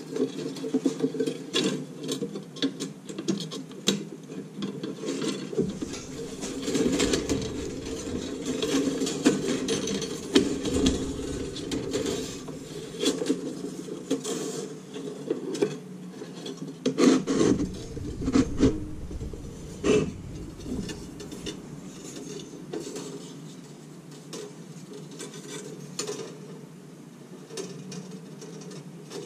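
Nichrome wire being pulled through the holes of an icemaker's ice cube cutter grid, rasping and scraping against the metal frame, with scattered clicks and a few louder knocks.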